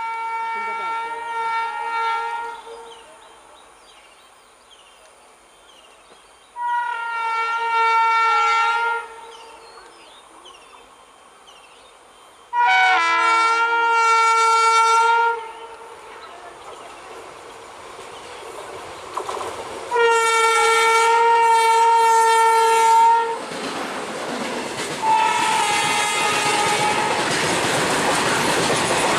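Indian Railways WAG-9H electric locomotive horn sounding five separate blasts of two to three seconds each as a loaded freight train approaches, the last one fainter. From about two-thirds of the way through, the loaded goods wagons roll past close by, a steady loud clattering of wheels on rail that lasts to the end.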